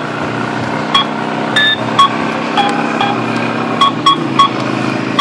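Short electronic beeps, roughly one a second, each with two clear tones, over a steady machine hum that drops lower about four seconds in.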